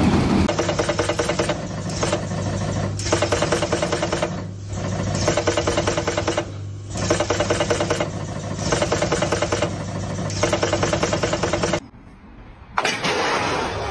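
Pearl-setting machine running as its press head fixes pearl studs onto a knit sweater: a fast mechanical clatter over a steady hum, in runs broken by short pauses every second or two.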